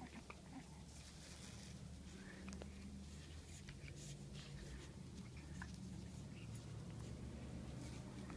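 Faint scuffling and light scattered clicks of a pug puppy scrabbling and playing on carpet, over a low steady hum.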